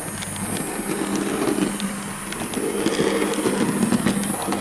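Dapol OO gauge LSWR B4 model tank locomotive running along the track: its electric motor and gears hum with a steady tone that wavers slightly, with occasional light clicks.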